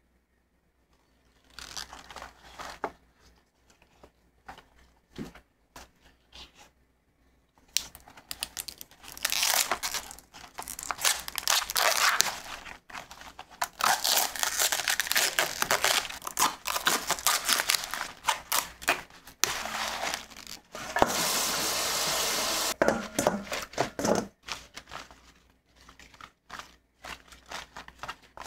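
Fresh collard green leaves being ripped off their stems by hand: repeated crisp tearing and crackling, starting about a second and a half in. The sound is heaviest in the middle and includes one longer continuous rip, with the leaves crinkling and rustling as they are handled and stacked.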